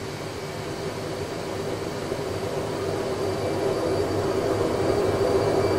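Airbus A320 full flight simulator's cockpit sound: a steady rush of air with an engine hum, growing gradually louder.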